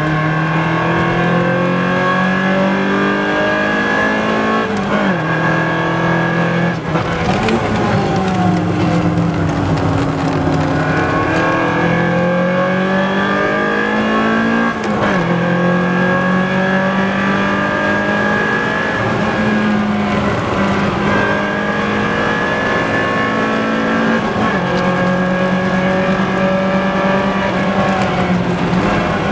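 BMW M3 E30's tuned four-cylinder engine with carbon airbox and cams, driven flat out and held at high revs. Its pitch drops and climbs again several times as it shifts gears. Around a third of the way in, the revs sink and then slowly build back up, as the car slows for a corner and pulls out of it.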